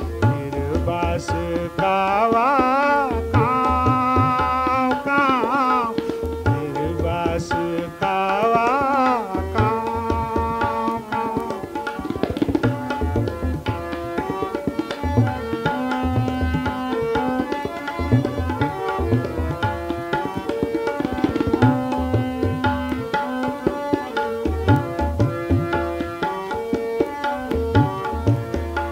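Instrumental passage of a folk song: hand drums, tabla-like, keep a steady rhythm under a melodic line that glides and wavers in the first third, then settles into held notes.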